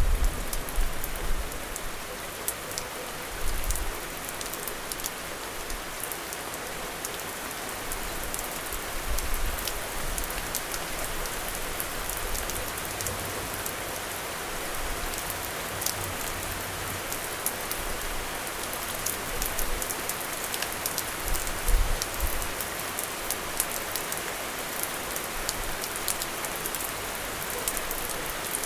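Steady rain falling, with many close drops ticking sharply on a hard surface. A few short low thumps come through, the loudest about twenty-two seconds in.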